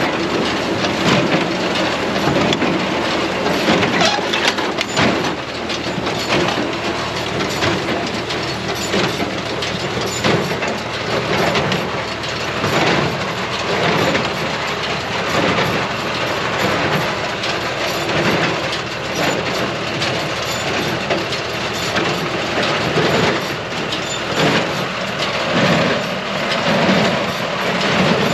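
John Deere 24T square baler running in the hay behind a tractor, with a steady rhythmic mechanical clatter over the tractor's engine.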